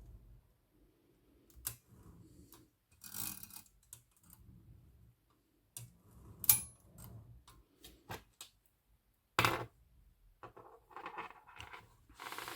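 Metal parts of an Olivetti Lettera 22 portable typewriter being handled and fitted during reassembly: irregular clicks, short scrapes and rattles. The sharpest click comes about six and a half seconds in, with a brief high ring.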